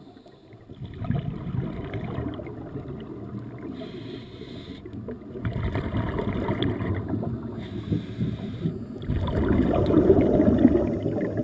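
Scuba regulator exhaust bubbles gurgling in bursts with each breath, heard underwater through a GoPro housing. The bursts come about one second in, around five and a half seconds in, and about nine seconds in, the last the loudest.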